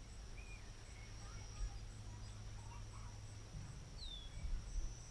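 Faint outdoor ambience: a steady high insect drone with a regular faint pulse above it, and a few soft bird chirps, including a short falling call about four seconds in.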